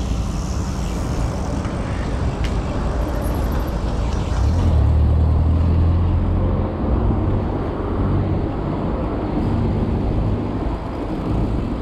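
Wind rumbling on the microphone of a moving bicycle, mixed with the engines of cars and a van driving close by in street traffic. The low rumble swells for a couple of seconds about halfway through, and there is one short click early on.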